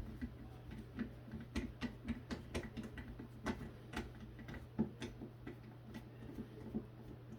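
Faint, irregular small clicks and ticks, a few a second, of a screwdriver with a security Torx bit working screws out of a plastic battery pack case, over a low steady hum.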